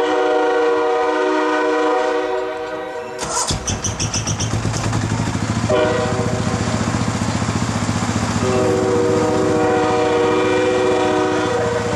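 Air horn of a passing VIA Rail Budd Rail Diesel Car sounding a chord of several steady notes, at a level crossing. There is one blast of about three seconds, then the underfloor diesel engines and wheels rumble past, and the horn sounds again for most of the second half.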